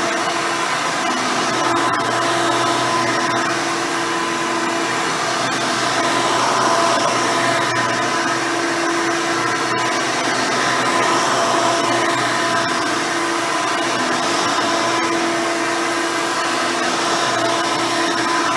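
Hoover Elite 350 upright vacuum running, fitted with a 7-amp motor and its seven-blade fan and a dual-row bristle brush roll: a steady motor whine over an airflow rush that swells and dips slightly.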